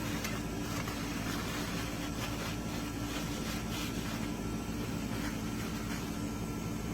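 Steady low mechanical hum, with a few faint, scattered rubbing and clicking noises of handling close by.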